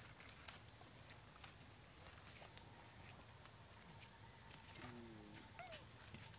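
Near silence: faint outdoor ambience with a steady high whine, a few faint high chirps and scattered light clicks.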